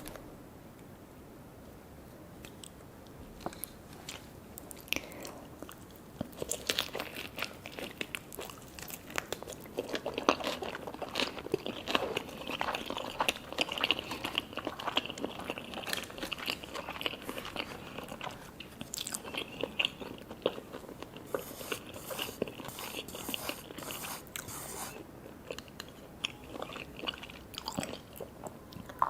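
Close-up biting and chewing of a sushi hand-roll cone, crisp crunching with many small cracks. A few scattered clicks at first, then steady crunching for most of the stretch.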